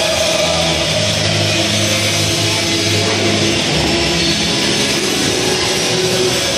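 Rock music with distorted electric guitar, playing steadily.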